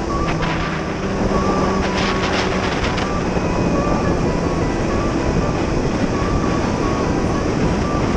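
Sport motorcycle riding at speed, its engine running steadily under heavy wind noise on the mounted camera's microphone, with a brief extra rush of wind about two seconds in.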